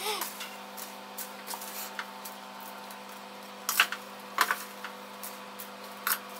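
Wooden spoon stirring caramel-coated popcorn in a stainless steel pot: scattered scrapes, rustles and clicks as the spoon hits the pot, over a steady low hum.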